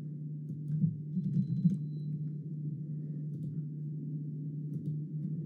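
A few faint computer keyboard and mouse clicks over a steady low electrical hum.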